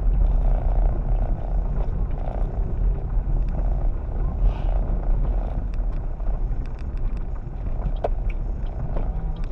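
Car driving slowly over a rough dirt road, heard from inside the cabin: a steady low rumble of engine and tyres, with scattered small clicks and rattles.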